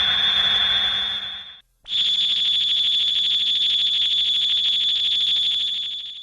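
Hedorah's synthesized monster cry from the Godzilla films: a high steady tone over a hiss, which cuts off about a second and a half in, then a second cry with a fast buzzing flutter that fades out near the end.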